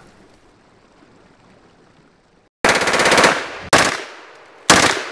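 10mm D54/10 (MP5/10-pattern) submachine gun firing in full auto. After a faint first half, a rapid burst breaks out about two and a half seconds in and lasts under a second, followed by two more sharp reports about a second apart, each ringing out.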